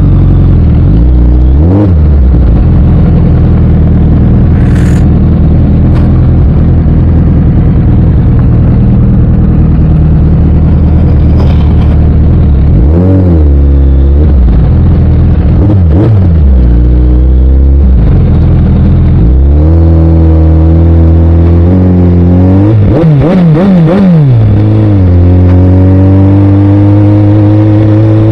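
Suzuki Hayabusa's inline-four engine, loud, under way: its note dips and picks up again several times, then climbs steadily and holds higher near the end.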